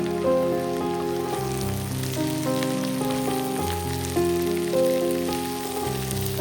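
Background music of held notes changing step by step, with a faint crackle and sizzle of food frying in oil underneath.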